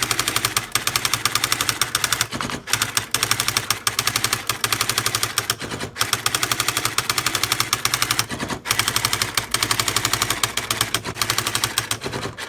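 Panasonic KX-R350 electric typewriter printing on its own, a very fast run of sharp striking clicks, broken by short pauses every few seconds. It stops right at the end.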